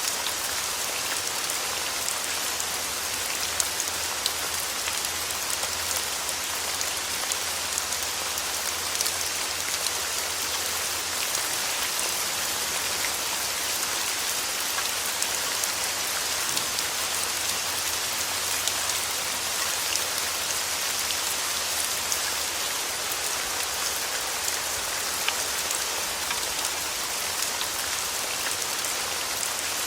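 Steady rain falling, an even hiss dotted with the small ticks of individual drops striking a surface.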